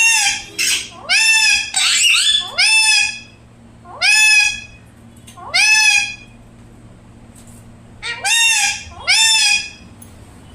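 Pet parrot giving a series of loud, harsh calls: a quick run of them, then single calls spaced out, a long pause, and two more near the end.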